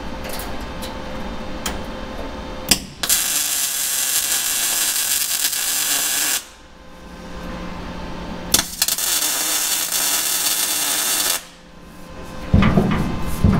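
Welder laying welds on a sheet-metal car floor panel: two runs of steady arc crackle, each about three seconds long, with a pause between them. A clatter comes near the end.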